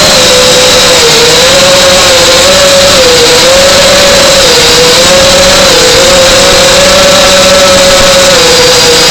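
RC model airplane's motor and propeller running loud and steady in flight, a single droning tone whose pitch dips and rises slightly every second or two.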